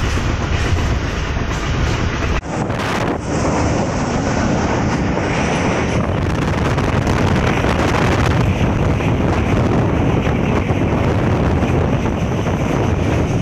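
Wind rushing over the microphone and the running rumble of a moving train, heard from an open carriage window; the sound drops out for a moment a couple of seconds in.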